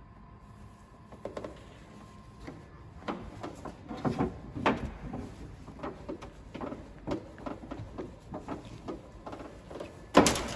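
Irregular clicks, taps and rustles of hands working on a car's tailgate and its trim and fittings, with one loud sharp clack near the end.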